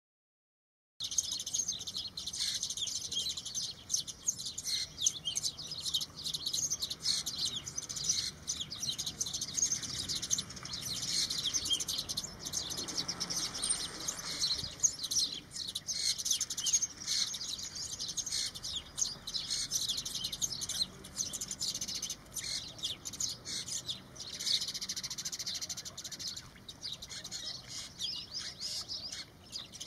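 House sparrows chirping, a dense, continuous chatter of many overlapping chirps that starts about a second in.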